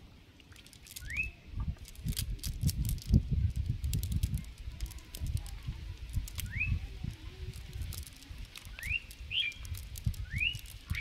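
A wet, muddy fishing net being pulled apart by hand, with irregular rustling surges and scattered small clicks. A bird gives short rising chirps, once about a second in and four more times in the second half.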